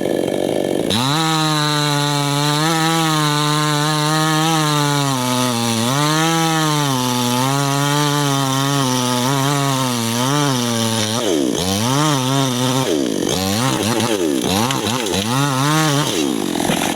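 Small chainsaw engine running hard through jengkol wood, its pitch sagging and recovering as the chain bites. Over the last few seconds it revs up and down rapidly, again and again.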